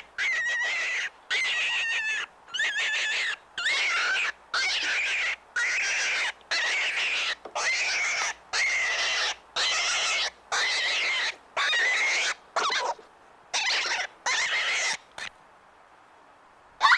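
Rabbit squealing over and over, a breathy high-pitched cry each under a second long, about one a second, stopping shortly before the end.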